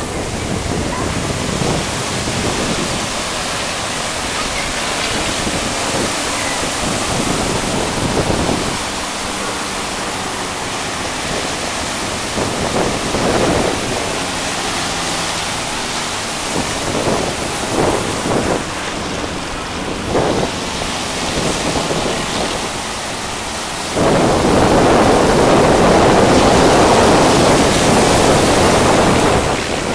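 Wind buffeting the microphone over the rush of surf, with a faint steady drone from the distant propeller aerobatic planes overhead. The rush turns louder for the last few seconds.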